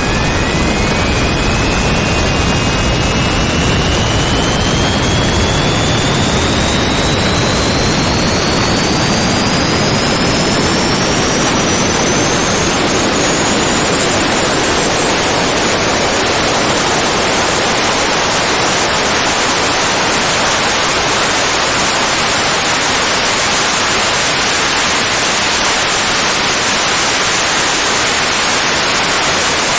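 Two turbojet engines spooling up towards full power: a dense roar with a whine that climbs steadily in pitch for about twenty seconds. After that the engines hold at full power as a steady, loud roar.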